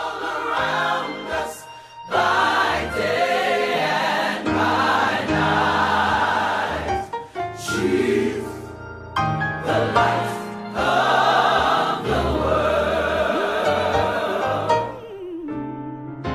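Choir singing, gospel-style music.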